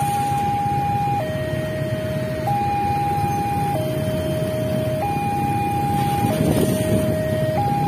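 Railway level-crossing warning alarm sounding its two-tone signal, alternating between a higher and a lower tone about every 1.2 seconds, the sign that the barrier is down for an approaching train. Motorcycle and road traffic run underneath, with a louder swell of traffic noise about six and a half seconds in.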